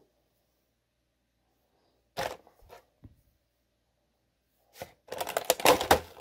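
Clear plastic packaging tray crackling and rustling as a laptop battery is handled in it: one short burst about two seconds in, then a denser stretch of crackling near the end as the battery is pulled from the tray.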